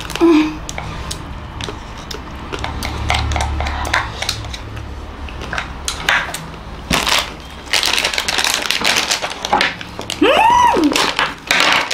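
Eating noises at a table: plastic ice cream wrappers crinkling and small wooden spoons clicking and scraping in paper cups, a rapid run of sharp clicks and rustles. About ten seconds in, a short pitched vocal sound rises and falls.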